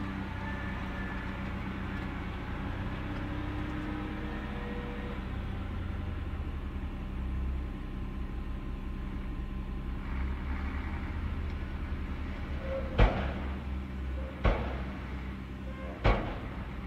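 Diesel truck engine idling steadily, heard from inside a truck cab. In the last few seconds there are three sharp knocks about a second and a half apart.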